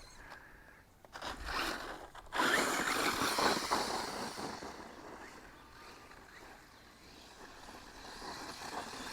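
Electric JLB Racing Cheetah RC truck driving through tall grass, a noisy swishing scrape of grass against the truck. It swells about two seconds in, fades away and builds again near the end as the truck comes back.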